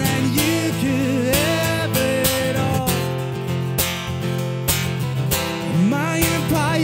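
Steel-string acoustic guitar strummed in a steady rhythm, with a man singing over it near the start and again near the end.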